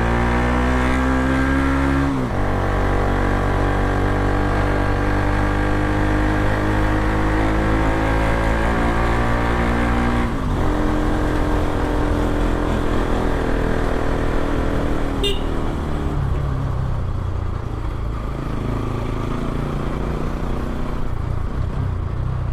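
Bajaj Pulsar NS200's single-cylinder engine through an Akrapovic exhaust with a dB killer fitted, accelerating hard. The revs climb, drop with an upshift about two seconds in, climb again, and drop with another upshift about ten seconds in. The engine then holds speed and eases off for the rest of the ride.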